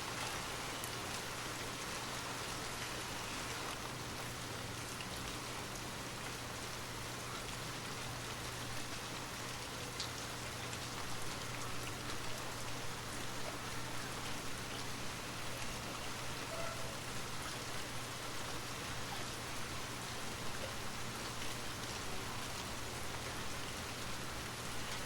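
Steady rain: an even hiss of rainfall with scattered faint drop ticks, over a constant low hum.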